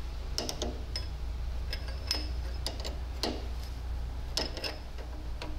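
Irregular metallic clicks of a wrench working the valve-adjusting screw and lock nut on a John Deere B's rocker arms while the valve clearance is set, over a steady low hum.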